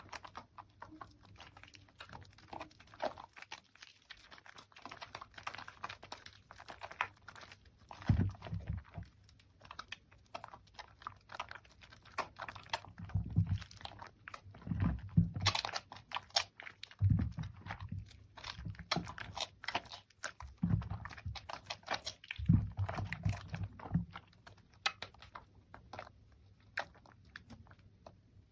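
Wet, squishy crackling of soaked, mushy soap lather and foam being squeezed and worked by hand, with many small pops and clicks and a deeper squelch every few seconds.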